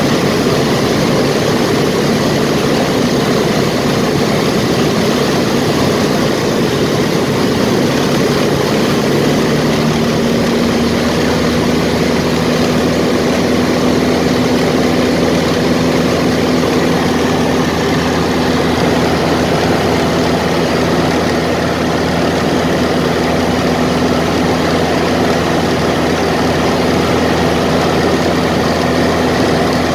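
Ercoupe's piston engine and propeller running in flight, heard loud inside the cockpit together with rushing wind noise. About nine seconds in, a steady low engine note comes out more clearly above the noise.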